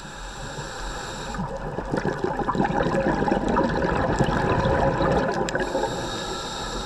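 Scuba diver's breathing heard underwater: exhaled bubbles from the regulator gurgle and crackle, swelling about two seconds in and easing off after about five seconds, over a steady underwater hiss.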